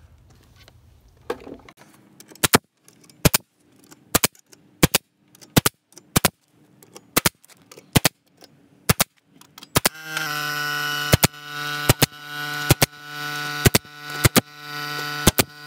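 Pneumatic brad nailer driving brads into a wooden tabletop: about seventeen sharp shots, each under a second apart. About ten seconds in, an air compressor starts running with a steady hum beneath the shots.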